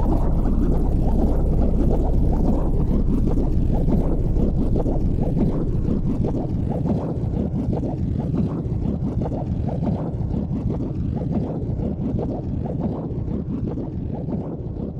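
Water cascading and gurgling down the tiers of a multi-level waterfall aquarium, driven by its circulation pump; a dense, low, rushing sound that gradually gets quieter.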